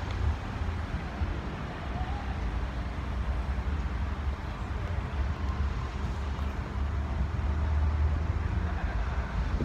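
Wind buffeting the microphone: a low, uneven rumble over a steady hiss, getting a little louder toward the end.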